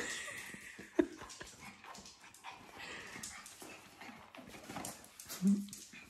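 Small pet dogs whimpering and scuffling up close as they crowd for attention. A high whine in the first second, a sharp short sound about a second in, and a brief low grunt near the end, which is the loudest moment.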